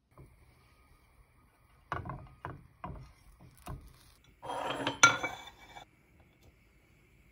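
Kitchenware handling: four sharp knocks about half a second apart, then a rough scrape of a toasted bread slice being taken out of a nonstick frying pan and put on a plate, with one sharp clink in the middle of it.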